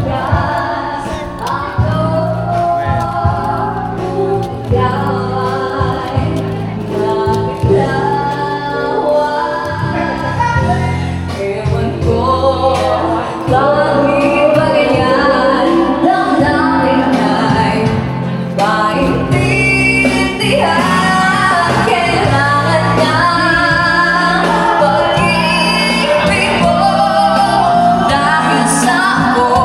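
A song playing, a woman singing over instrumental backing with sustained low notes; it grows a little louder about halfway through.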